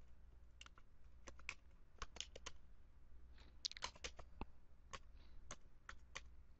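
Faint typing on a computer keyboard: irregular keystrokes, singly and in quick short runs, over a low steady hum.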